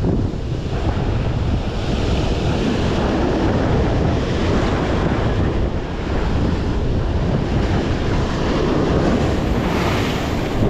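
Heavy surf breaking and washing over the rocks, with strong wind buffeting the microphone.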